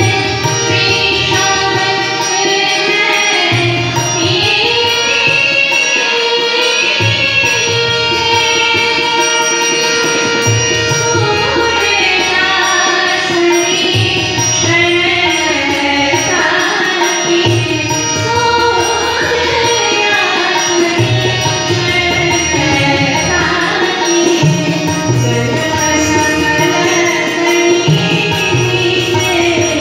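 A woman singing a bhajan, accompanied by harmonium and tabla, with the tabla's bass drum strokes keeping a steady rhythm under the sung melody.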